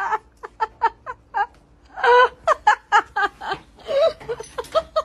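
A person laughing in quick, repeated bursts, with a longer, louder laugh about two seconds in.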